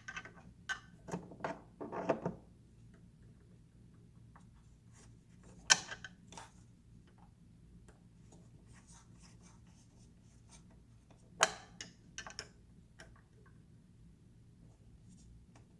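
Light handling noise and small metal clicks as a Truth 108 hand knob is pushed onto a casement window operator's spline and its set screw is tightened down. Two sharp clicks stand out, about six and eleven seconds in.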